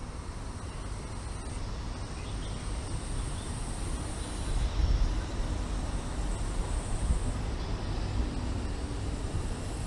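Outdoor park background noise: a steady low rumble, louder around the middle, with a faint high hiss that comes and goes.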